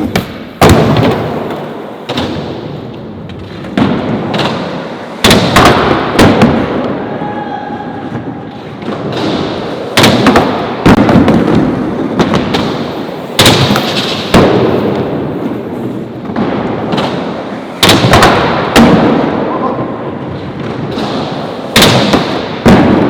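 Skateboards rolling on a hard indoor floor, with a dozen or more sharp wooden clacks and slams of tails popping, boards hitting the furniture obstacle and landing, coming every second or two over the rumble of the wheels.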